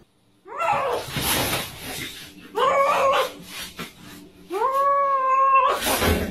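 A cat yowling three times in drawn-out calls, the last the longest and held steady. Bursts of hissing come with the first call and just after the last.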